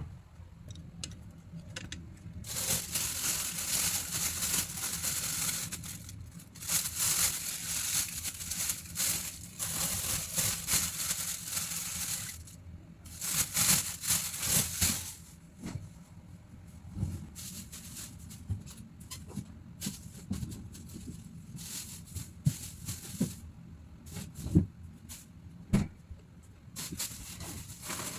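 Plastic shopping bags rustling and crinkling in long bursts as groceries are handled, followed by scattered taps and knocks of items being set down.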